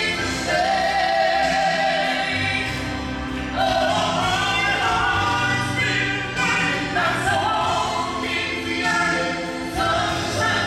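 A man and a woman singing a gospel duet into microphones, holding long notes with a wavering pitch over a sustained low accompaniment.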